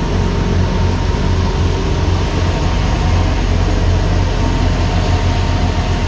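Loaded cargo trucks' diesel engines labouring up a steep hairpin climb: a loud low rumble with a fast pulsing beat, the helicopter-like throb a truck on this climb is known for.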